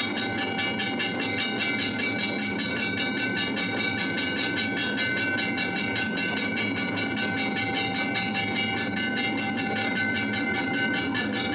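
Temple bells rung rapidly and without pause for aarti, about seven or eight metallic strikes a second over steady ringing tones.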